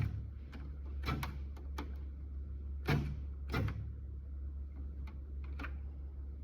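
Electric typewriter keys and mechanism being struck, giving about nine sharp, irregularly spaced clacks and knocks over a steady low hum.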